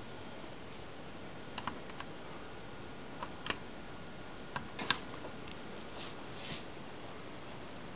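Selection push-buttons on a Rockola 477 jukebox being pressed, a run of short sharp clicks spread over a few seconds, the loudest about five seconds in.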